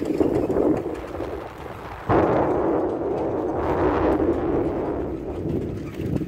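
Wind buffeting the microphone over the rumble of a moving vehicle, a rough, fluttering noise that jumps suddenly louder about two seconds in.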